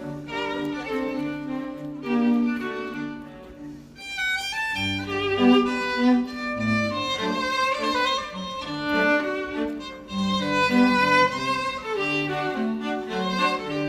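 Music played on violin over lower bowed strings: a melody of separate notes, dipping briefly about four seconds in before going on.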